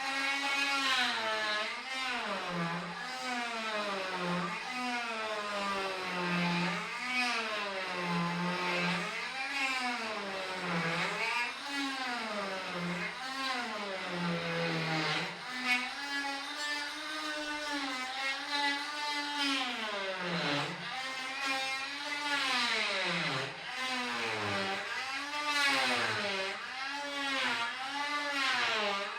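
Rockwell oscillating multi-tool running and cutting, its motor whine dipping in pitch and recovering over and over, about once a second.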